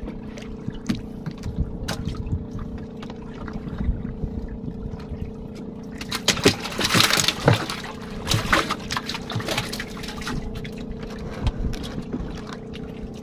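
Water splashing and knocking as a hooked pike conger is hauled from the sea on a longline and brought into a wooden boat, loudest about six to eight seconds in. Scattered clicks and knocks from the line and hull run over a steady low hum.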